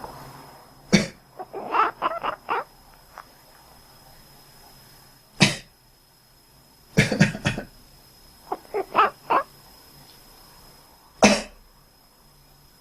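A person coughs several times, single coughs and one short fit of coughs. Each time a domestic cat answers with a quick run of short meows or chirps.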